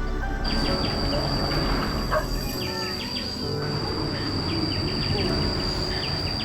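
Insects droning with a steady high-pitched whine, briefly cut at the very start, joined by short bird or insect chirps, over a low background rumble.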